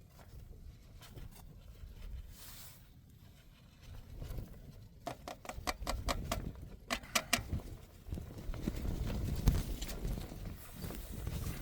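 Blizzard wind rumbling and buffeting, growing louder in the second half. A quick run of sharp clicks and taps comes about five seconds in.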